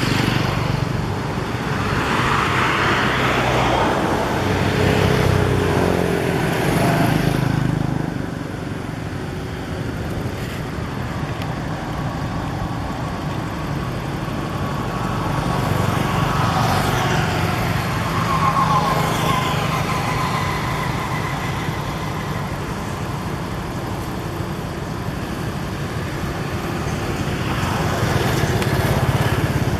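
Road traffic: motor vehicles running and passing, a steady low rumble that swells and fades a few times.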